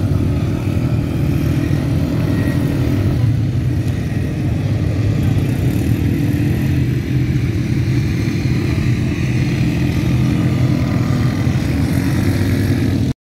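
Quad bike (ATV) engines running, a steady low engine drone that cuts off suddenly near the end.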